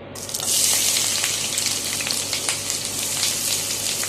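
Sliced onions going into hot coconut oil in a pan and sizzling: a dense frying hiss that jumps up about half a second in, with fine crackles all through it.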